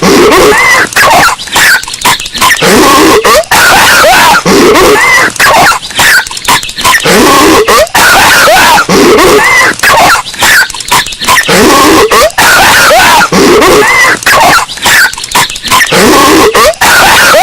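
Patrick Star's cartoon voice coughing and hacking, boosted until it clips and distorts harshly. The same few seconds repeat as a loop about every four seconds.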